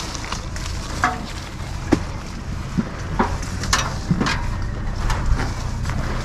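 Irregular knocks and clicks from someone climbing down an aluminium stepladder, over a steady low rumble.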